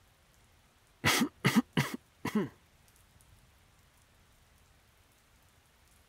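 A man coughing four times in quick succession, the cough of someone sick, over a faint steady patter of rain.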